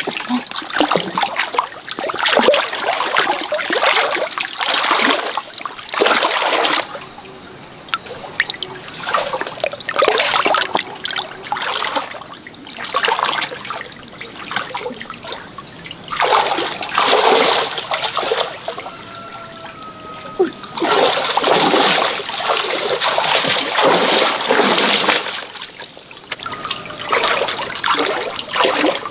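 Stream water splashing and pouring in irregular bursts a second or two long, a few seconds apart, with quieter trickling between them.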